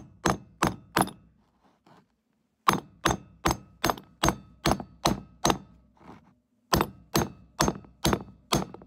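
Hammer repeatedly striking the steel plunger of a hammer-type lug crimper, crimping a copper ring terminal onto 2-gauge battery cable. Sharp metallic blows, about two to three a second, in three runs with short pauses between.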